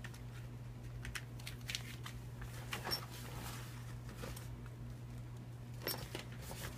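Soft rustling and a few light clicks as a hair straightener and curling iron are pushed into the fabric side pocket of a duffel bag, over a faint steady low hum.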